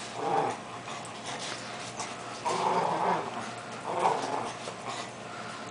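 Small dog growling in play while tugging at a toy, in three short bursts.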